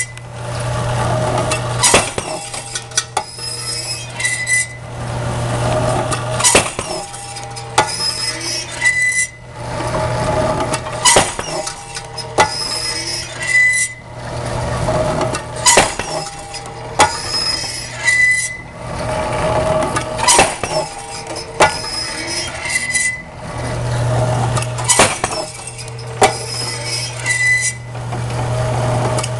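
Impact fatigue drop test rig running through its cycle at 12.66 cycles a minute: a sharp impact about every 4.7 seconds, six in all, with lighter clinks and rattles between the drops.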